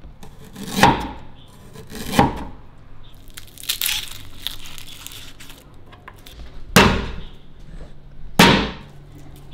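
Cleaver knocking down on a wooden chopping board, twice in the first few seconds and twice near the end, as ginger and garlic are cut. In between, the dry papery skin of a garlic bulb crackles as it is pulled apart by hand.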